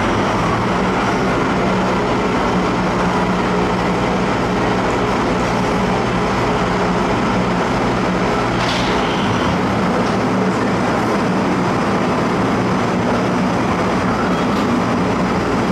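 Passenger boat's engine droning steadily under way, heard from inside the cabin, with the rush of water and wind along the hull. A short clatter about halfway through.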